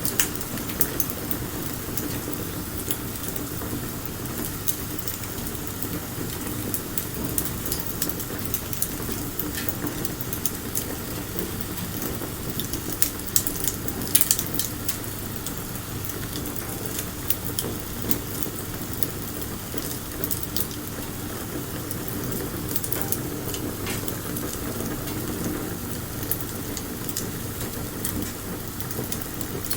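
Wood bonfire burning: a steady low rush of flame under frequent sharp crackles and pops, with a cluster of louder pops about halfway through.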